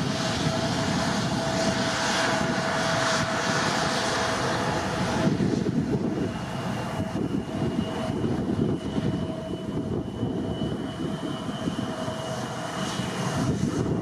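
Boeing 787-8's Rolls-Royce Trent 1000 jet engines running at takeoff power, a steady dense roar with a steady hum in it. About six seconds in, a steady high whine joins from a J-AIR regional jet taxiing close by, and it fades out near the end.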